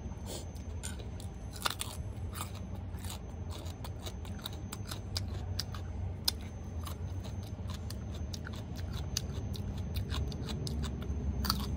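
Close-up mouth sounds of eating a rice-noodle salad with crunchy pig's ear: chewing with many sharp, crisp crunching clicks, and near the end a bite into a crisp raw red radish. A steady low hum runs underneath.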